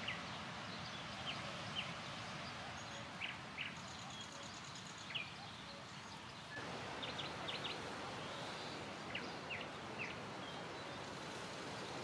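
Small birds calling in short, separate chirps over a steady rush of wind, which grows louder a little past halfway. A brief, rapid high trill comes about four seconds in, and a closer run of chirps a little after halfway.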